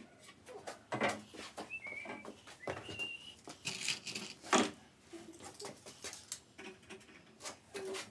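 Hands handling pine boards and pocket-hole screws on a workbench: scattered clicks, knocks and rattles, including screws being picked from a small plastic box near the middle, with a couple of short high squeaks early on.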